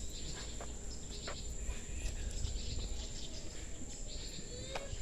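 Outdoor ambience: a steady high-pitched insect drone, with scattered bird chirps and a few faint clicks.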